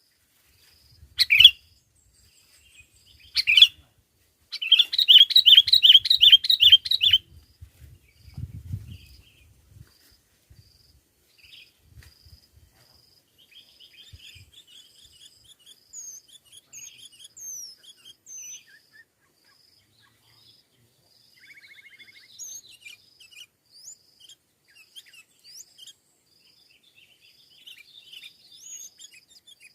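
Sooty-headed bulbuls calling: two sharp calls in the first few seconds, then a loud run of rapidly repeated chirps for about two and a half seconds, followed by fainter scattered chirps and whistles. A faint, evenly repeated high tick runs underneath.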